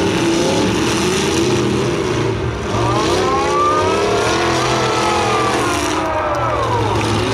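Demolition derby car engines running loud, one of them revving up and back down over about four seconds.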